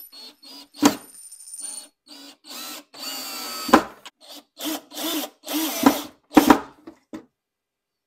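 Cordless drill-driver run in short bursts of under a second, the longest about three seconds in, with a few sharp knocks between them; the bursts stop about seven seconds in.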